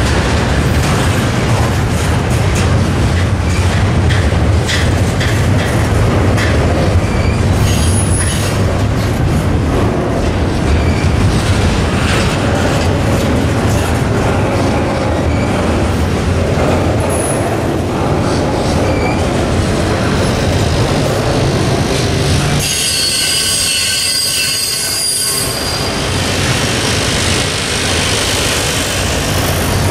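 Double-stack container train rolling slowly past, its steel wheels running on the rails with clicks and wheel squeal. About 23 seconds in the low rumble briefly drops away while thin high squealing tones carry on.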